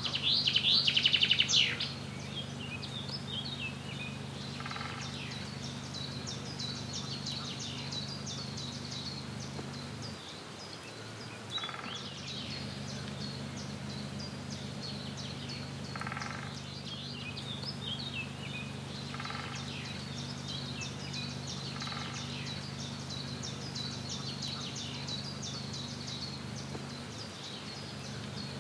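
Several birds singing and chirping, with a loud rapid trill in the first two seconds and a lower call repeating every few seconds. A steady low hum runs underneath.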